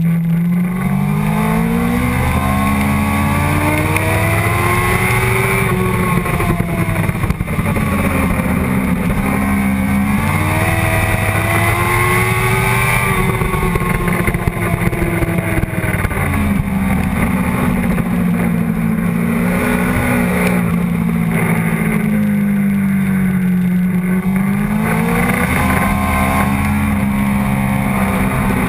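Sportbike engine at racing speed, heard onboard, its revs climbing and falling over and over with sharp drops as gears change and the bike slows for corners.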